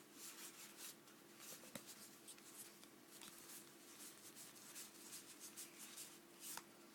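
Faint rustling and light flicks of 2008-09 Fleer basketball trading cards being handled and sorted through.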